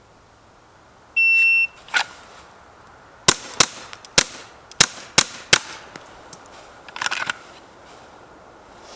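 A shot timer beeps once, then a .22 LR Ruger Mark IV pistol fires six quick shots in about two seconds. A single click comes before the shots, and a brief rattle follows them.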